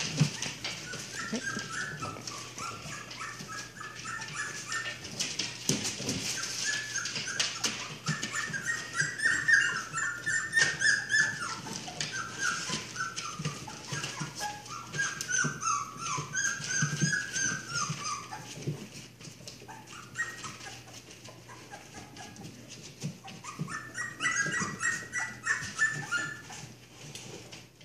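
Three-week-old boxer puppies squealing and yipping in quick high-pitched strings as they play, with a lull about two-thirds of the way through. Paws scratch and rustle on newspaper.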